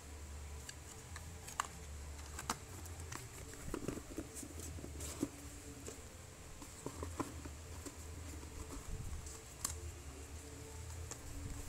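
Light taps, clicks and rustles of cardboard and paperboard packaging being handled and fitted into a tablet box, scattered irregularly, over a low steady hum.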